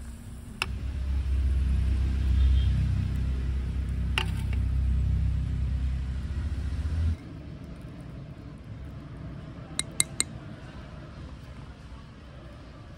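A small spoon clicks twice against a miniature clay pot over a low rumble that cuts off suddenly about seven seconds in. About ten seconds in come three quick clinks of clay on clay as a small clay lid is set on the pot.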